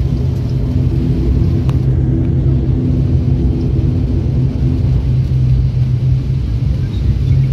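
Turboprop airliner's engines heard from inside the passenger cabin while the aircraft taxis: a steady low drone with an even hum.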